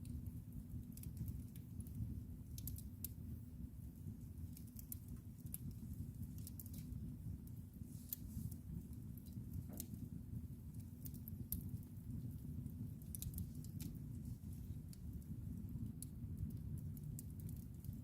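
Wood fire in a fireplace crackling: irregular sharp pops and snaps several times a second over a steady low rumble of the flames.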